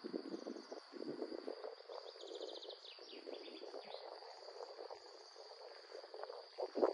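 Summer outdoor ambience: a steady high insect buzz, with a small bird singing a fast trill about two to four seconds in, over a soft crackling rustle.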